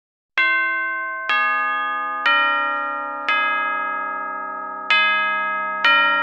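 Music of struck bell tones playing a slow melody: six notes roughly a second apart, each ringing on and fading before the next.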